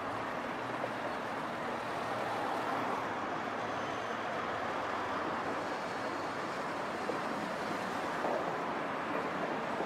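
Steady noise of road traffic on a multi-lane city street, cars, vans and a truck driving past.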